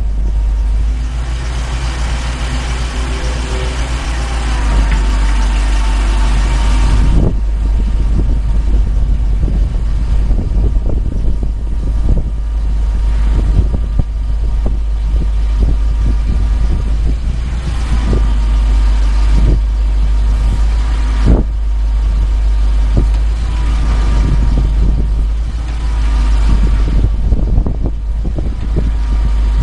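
The 6.1-litre gasoline V8 of a 1983 Ford F600 bucket truck running while the aerial boom is worked hydraulically. It is fuller and louder for about the first seven seconds, then settles lower. A thin steady whine comes and goes as the boom moves.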